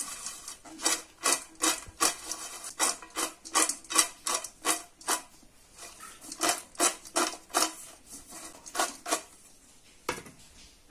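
Fried french fries tossed in a stainless steel bowl, the bowl shaken back and forth so the fries slide and rattle against the steel: a rhythmic scraping, about three strokes a second, in two runs with a short pause between and one last stroke near the end.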